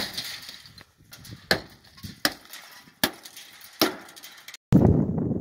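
Four sharp knocks, evenly spaced about three-quarters of a second apart, as a metal rod strikes a junked car. Near the end there is an abrupt cut to a steady low rumbling noise.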